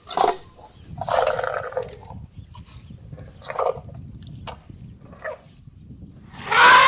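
Elephants calling: a few short calls, then a loud, longer call with a falling pitch that starts near the end.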